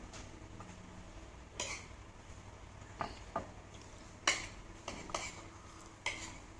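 Kitchen utensils clinking and knocking against dishes: about seven irregular, sharp clinks with a bright ring, two of them louder than the rest.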